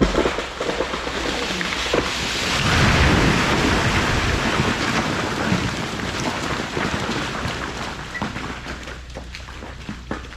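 Large ice-coated tree limb breaking and crashing down onto a garden shed: a sudden crash, then a long, dense clatter of snapping branches and shattering ice, loudest about three seconds in. It dies away into scattered ticks and taps of falling ice pieces.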